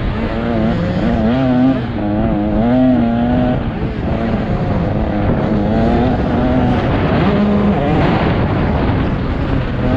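Motocross bike engine revving, its pitch rising and falling again and again as the throttle is worked.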